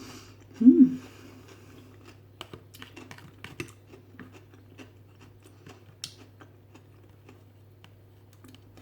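Close-up eating sounds: scattered small clicks and smacks of chewing and mouth noises, with one short, loud voiced sound, its pitch rising then falling, less than a second in.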